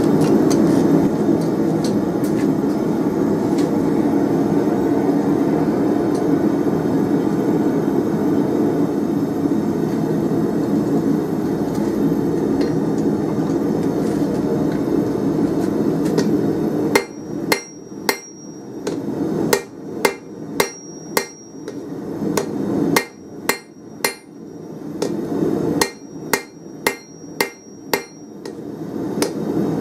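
Hand hammer striking a glowing 24 mm round steel bar on the anvil, pointing its end: sharp blows with a bright anvil ring, in short runs of about one to two a second with brief pauses. For about the first half, before the blows start, there is a steady low rushing noise.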